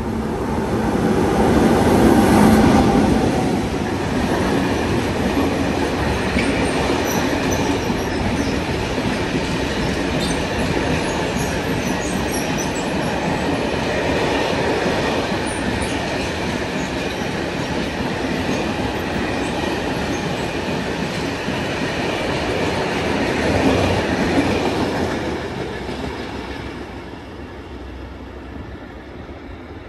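A train running past on the rails, with a long steady rumble of wheels on track. It is loudest about two seconds in and fades away over the last few seconds.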